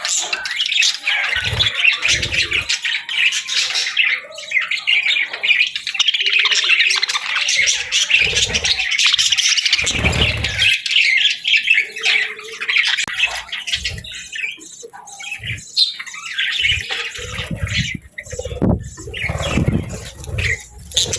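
Budgerigars chattering and squawking in a fast, continuous warble of chirps, with scattered low thumps, more often near the end.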